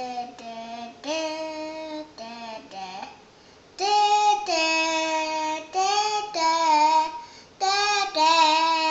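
A young child's voice singing a string of held notes, imitating a gong; the notes get louder about four seconds in.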